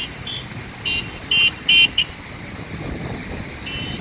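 Vehicle horn giving a string of short, high-pitched toots, loudest around a second and a half in, with one more near the end, over the steady rumble of passing heavy truck traffic.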